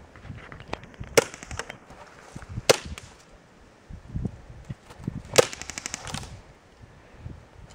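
Airsoft electric gun (AEG) firing three short bursts, each opening with a sharp crack; the first and last run on into a quick rattle of shots.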